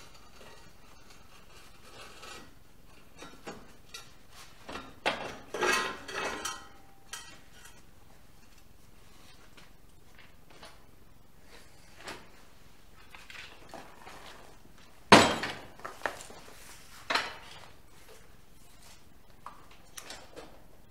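Metal pipe and steel parts clanking and knocking as they are handled at a bench vise: irregular clinks and knocks, a cluster of them about five to six seconds in and the loudest single clank about fifteen seconds in.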